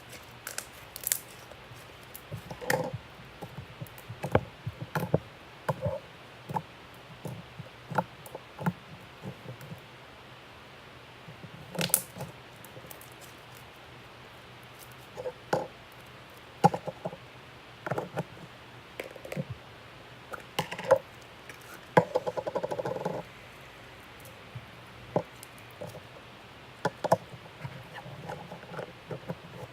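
Slime being squished and pressed by hand: irregular sticky squelches and small pops, with a quick crackling run of tiny pops about two-thirds of the way through.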